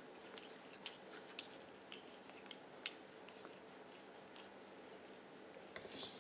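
Faint scratchy crackling of a grooming brush being drawn through a long-haired cat's fur, in short irregular strokes, with a slightly louder rustle near the end.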